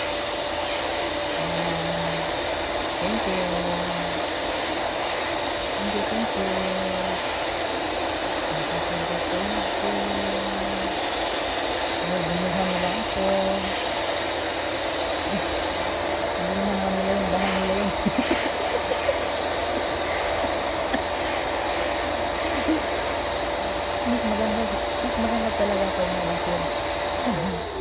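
A brand-new vacuum cleaner runs steadily with a whooshing whine. Just before the end it is switched off and its motor winds down.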